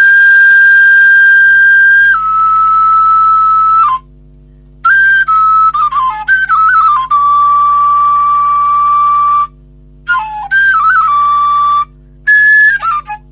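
A musical interlude: a single flute-like melody of long held notes and short ornamented runs over a steady low drone, broken by a few brief pauses. It is a radio programme's musical bridge into the next segment.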